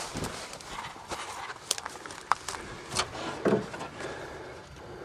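Irregular clicks and knocks, with a duller thump about three and a half seconds in, from a stuck accelerator pedal in an old Pontiac being worked to free it.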